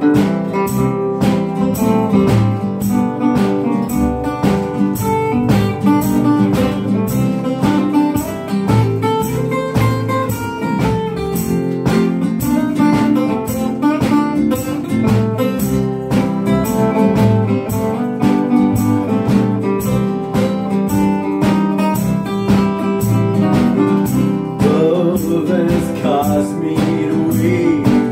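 Instrumental break of a skiffle-blues trio: an acoustic guitar strums a steady rhythm, a tea chest bass plucks the bass line and a resonator guitar plays the lead, with wavering, sliding notes near the end.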